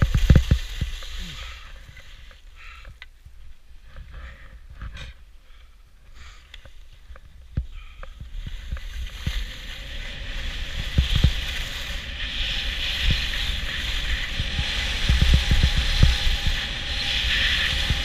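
Skis hissing over groomed snow, with wind rumbling on the camera's microphone. Quieter with scattered clicks from about two to eight seconds in, then the hiss and rumble build as the skier picks up speed downhill.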